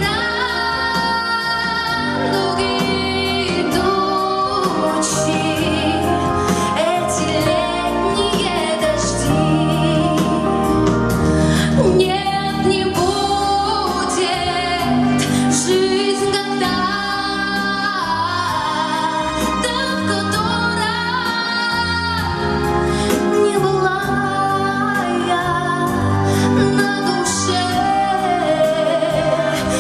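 A woman singing a pop song with full instrumental accompaniment.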